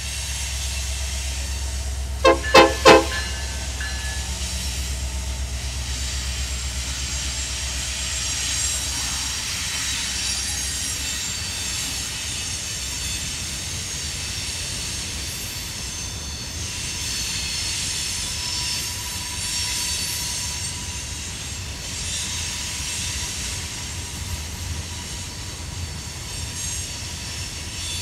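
Union Pacific freight train passing: the low diesel rumble of its trailing EMD locomotives fades over the first several seconds, broken about two seconds in by three short horn blasts. Empty rock hopper cars then roll by with steady wheel-on-rail noise and a faint wheel squeal.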